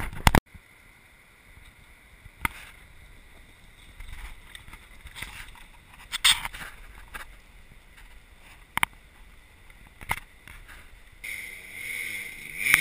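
Mostly quiet trail sound with a few scattered clicks and knocks. About eleven seconds in, a dirt bike's engine comes in from down the trail and grows louder, its pitch rising and falling as it climbs toward the camera.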